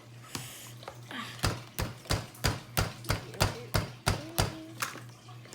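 A hard tool chopping or tapping down onto Play-Doh on a tabletop: about a dozen sharp knocks at roughly three a second, starting about a second and a half in and stopping near the five-second mark.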